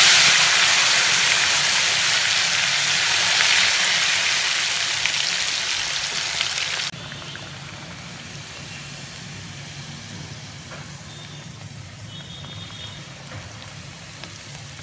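Pressure-cooked bitter gourd pieces deep-frying in hot oil: a loud sizzle that slowly fades, then drops suddenly about seven seconds in to a quieter, steady sizzle.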